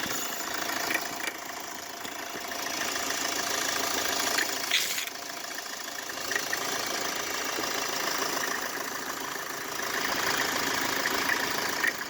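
Mercedes Vito W639's OM646 four-cylinder diesel idling cold with an irregular rattling knock. A stethoscope traces the knock to the air-conditioning compressor clutch and mounting, which is likely loose.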